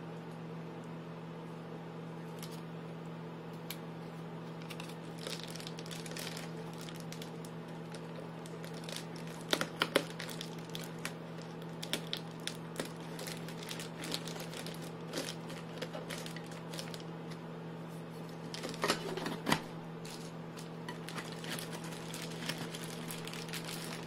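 Foil tape and foil-faced Reflectix insulation crinkling and crackling in irregular bursts as hands press and fold it around the top of a pot cozy, loudest about ten seconds in and again near nineteen seconds. A steady low hum runs underneath.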